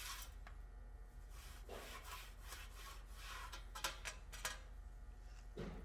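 Cloth rag wiping surfaces clean with alcohol, in several faint, irregular rubbing strokes: the degreasing step before glue-pull tabs are glued on.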